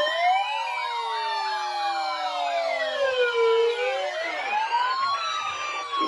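Several sirens sounding at once, overlapping: one slow wail rising and falling, with faster yelping sweeps over it. A steady tone also sounds beneath them for about the first half.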